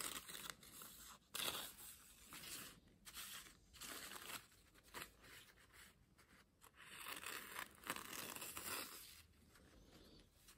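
M398 steel knife blade slicing through a thin paper napkin in a sharpness test: repeated faint, short tearing strokes with paper rustling.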